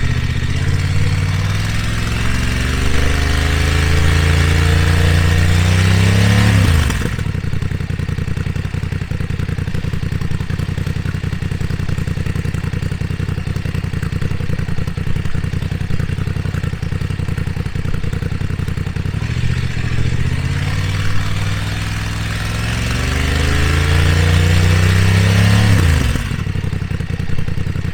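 BMW F 900 R parallel-twin engine through an SC Project SC1-R carbon exhaust with its dB eater fitted, revved twice from idle for a stationary noise test: each time the pitch climbs steadily over several seconds, then the throttle is snapped shut and it falls suddenly back to a steady idle.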